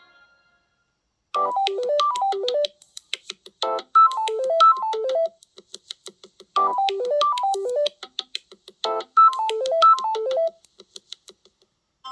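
Samsung Galaxy A12 stock ringtone starting about a second in. A short run of quick, bright notes stepping down in pitch repeats about every two and a half seconds, with faint rapid ticks between the runs.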